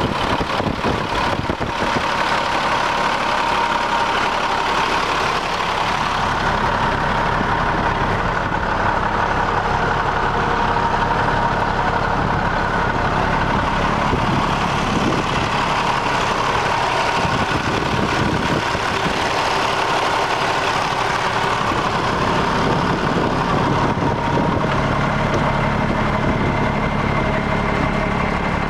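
1991 Ford L9000 truck tractor's diesel engine idling steadily. Its low note grows stronger near the end, heard by the vertical exhaust stack.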